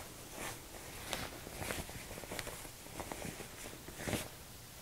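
Fabric rustling and rubbing as a sewn fabric piece is handled and turned right side out, in soft, irregular brushes.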